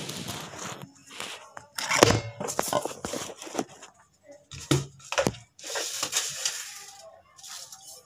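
Irregular knocks, clicks and clatter of kitchen utensils and a plastic jug being handled, mixed with short rustling, scraping noises.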